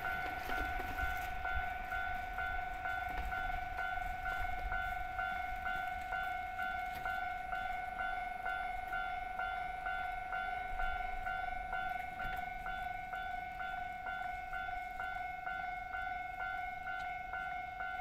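Japanese railway level-crossing warning bell ringing steadily, one electronic ding repeated about twice a second, over a faint low rumble.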